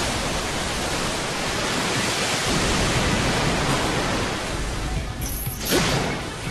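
Animated sword-energy blast sound effect: a loud, steady rushing noise like a huge wave crashing, thinning after about five seconds, with a short sharp swish near the end.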